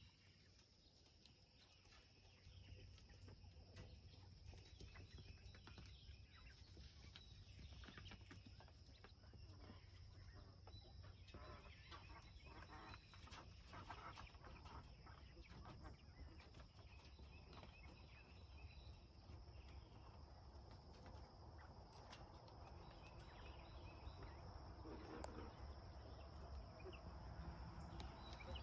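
Faint footsteps and handling knocks on a dirt-and-straw floor, with a low steady rumble and a few faint bird chirps.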